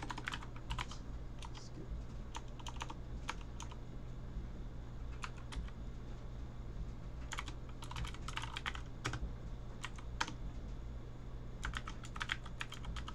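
Typing on a computer keyboard in short bursts of quick keystrokes with pauses between them, over a steady low hum.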